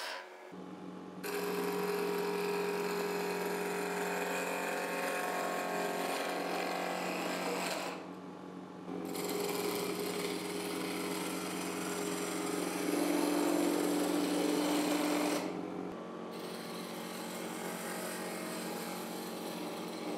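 Homemade plywood lathe's electric motor running steadily with a humming drone while a roughing gouge cuts into a spinning olive-wood blank, giving a rough, scraping shaving noise. The cutting noise stops briefly three times: right at the start, about eight seconds in and about sixteen seconds in.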